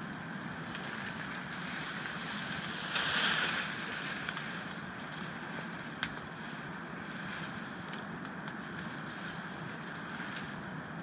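Steady rush of a river running high over rapids. A brief louder rustle comes about three seconds in, and a single sharp click about six seconds in.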